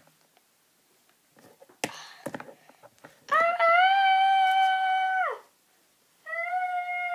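A child's voice giving two long, steady-pitched wails, the first falling off at its end, the second starting near the end. Before them, about two seconds in, come a few light knocks of plastic toys being handled.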